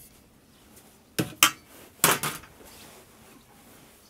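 Stainless steel clanks and knocks as a sausage stuffer is set down and set up on a metal tray: two sharp knocks about a second in, then another loud clank with a few smaller ones about a second later.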